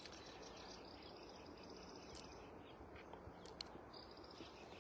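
Near silence: faint outdoor ambience with a faint, rhythmic high chirping and a couple of faint clicks about three and a half seconds in.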